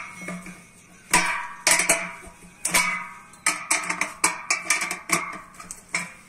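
10 mm steel spanner clicking and clinking against the nuts and bolts of a metal satellite-dish mounting bracket as the nuts are tightened: irregular sharp clicks, some with a brief metallic ring.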